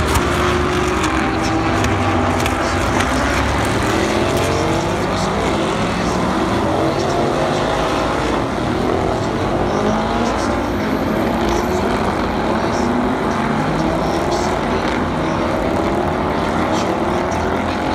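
Several IMSA WeatherTech race car engines running hard together as a pack goes through the corners, their overlapping pitches repeatedly climbing through the gears and dropping on the shifts.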